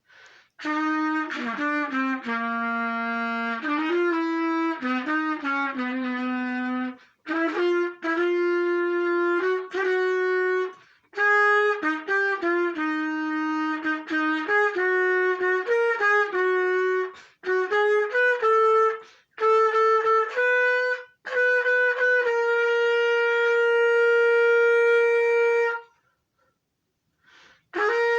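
Solo trumpet playing a fanfare's third trumpet part in short phrases of separate notes with breath breaks between them. It ends on a long held note, then falls silent briefly before a new phrase begins near the end.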